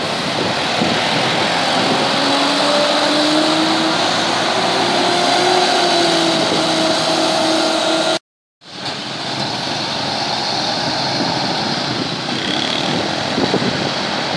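City bus engine pulling away through an intersection, its note rising slowly as it accelerates. After a brief dropout about eight seconds in, general street traffic noise.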